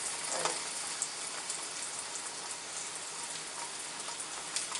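An egg frying in a pan: a steady sizzle with faint crackles.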